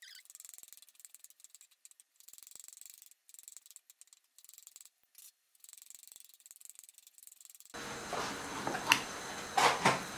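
Knife blades chopping raw beef into hand-minced meat on a wooden cutting board, a faint run of rapid clicking. About eight seconds in the sound grows fuller and louder, with a few sharp knocks as the knife scrapes the mince off the board.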